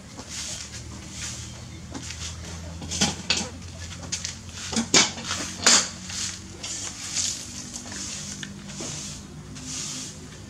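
Puppies suckling at their mother's teats: a run of wet smacking and clicking sounds, with a few louder smacks about three and five seconds in, over a faint low hum.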